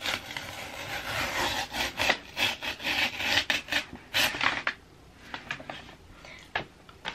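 Tear strip being ripped along a cardboard shipping envelope: a rough, rasping tear in quick uneven strokes that stops about four and a half seconds in, followed by a few faint rustles of the card.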